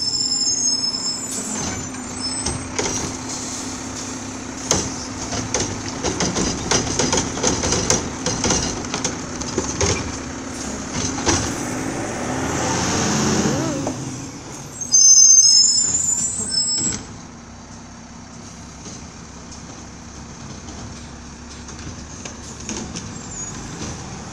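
Garbage truck running close by, its engine steady under repeated clanks and knocks, with a swell of noise about 12 seconds in. It gives high-pitched brake squeals right at the start and again about 15 seconds in, the loudest moment.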